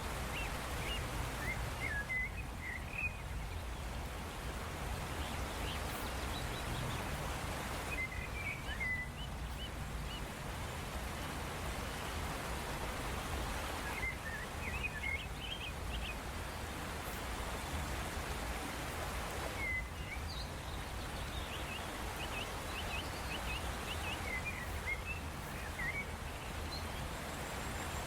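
Birds chirping in short clusters every several seconds over a steady hiss of background noise.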